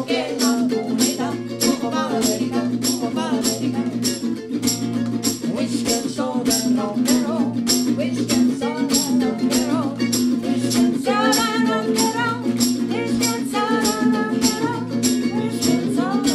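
Live acoustic song: a woman singing with a man singing along, accompanied by a strummed acoustic guitar and a mandolin, over a steady percussive beat.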